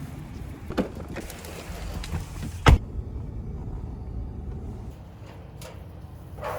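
A vehicle's low steady running rumble with a few scattered clicks and one loud sharp knock about two and a half seconds in.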